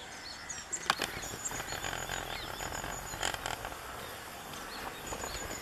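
Several birds chirping and calling, with quick series of high repeated notes near the start and again near the end. A couple of brief knocks come about a second and three seconds in.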